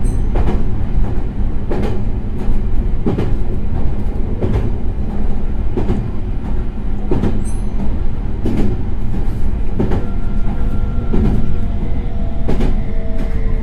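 Meitetsu 3100 series electric train running, heard from inside the car. It makes a steady rumble, and the wheels clack over rail joints about three times every four seconds. Near the end a faint tone begins to fall in pitch as the train slows.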